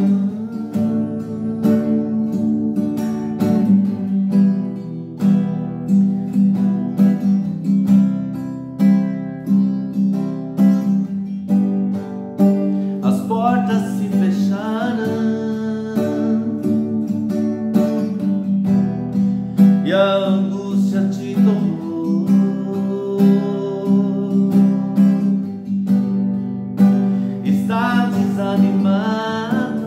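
Acoustic guitar strummed in a steady rhythm, accompanying a man singing a Portuguese hymn. His voice comes in about halfway through, again a little later, and near the end.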